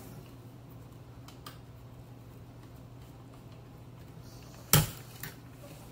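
Light handling clicks of a Northern Electric 500 telephone's metal base and rotary dial being fitted back together, with one sharp click near the end followed by a softer one, over a steady low hum.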